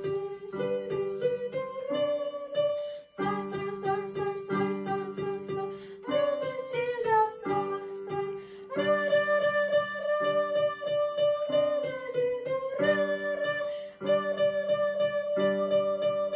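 A simple melody in G major played on an electronic keyboard, short repeated notes at a steady beat. A child's voice sings the solfège note names along with it.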